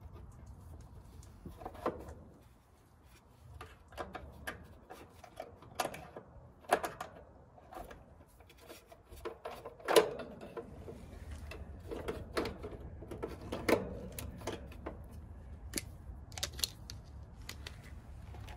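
Irregular small clicks and knocks of hands and tools working on a heat pump condenser's wiring, the sharpest knock about halfway through, over a faint low steady rumble.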